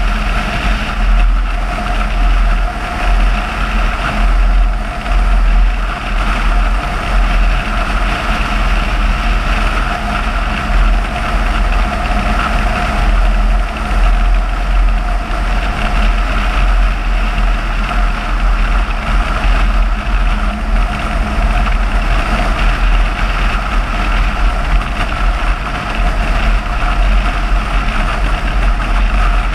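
Steady engine and road noise of a car driving at road speed, picked up by a camera mounted on the car, with a low wind rumble on the microphone.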